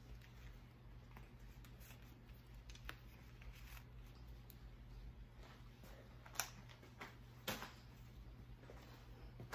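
Near silence: room tone with a steady low hum and a few soft clicks and rustles, the loudest a little past the middle.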